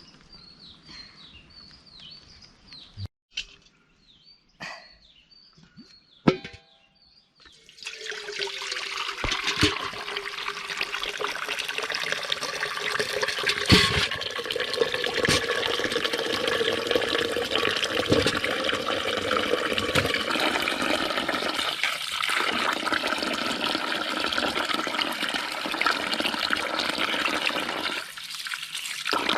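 Water running or gushing steadily. It starts suddenly about eight seconds in, after a few faint knocks, and dips briefly near the end.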